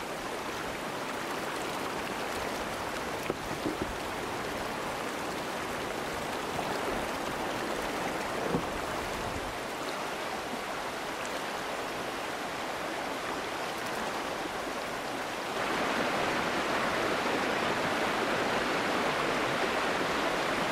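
White water of a small river rapid rushing steadily, growing louder about three-quarters of the way through. A few faint knocks come in the first half.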